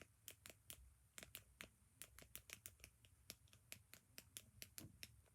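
Small plastic fidget toy clicking as it is worked in the hands: faint, quick, irregular clicks, about four or five a second.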